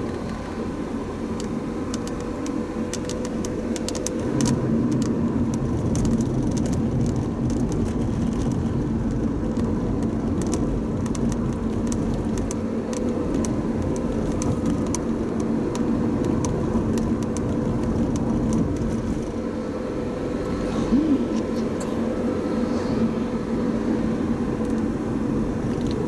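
Car driving on a road, heard from inside the cabin: a steady hum of engine and tyre noise with a constant drone, and scattered faint clicks in the first half.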